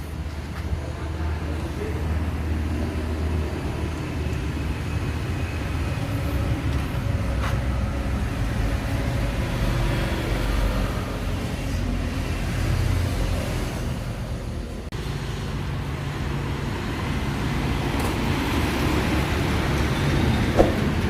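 Steady low rumble of motor vehicle noise, with a few faint clicks.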